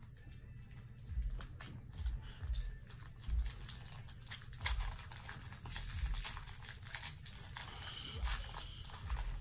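Pokemon booster-pack wrappers crinkling and cards rustling as they are handled and opened, with irregular soft thumps and light clicks.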